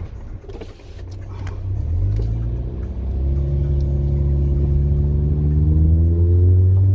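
Car engine under way, its note building from about two seconds in, getting louder and climbing slowly in pitch as the car pulls.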